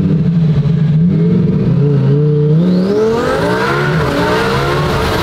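Twin-turbo Lamborghini Huracán STO's V10 engine pulling under hard acceleration. It drones steadily for about two and a half seconds, dips briefly, then climbs steadily in pitch, with a thin rising whistle above it.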